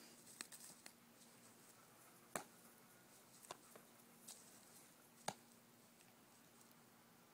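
Near silence with a faint steady hum, broken by five or so short, sharp clicks, the loudest about two and a half and five seconds in.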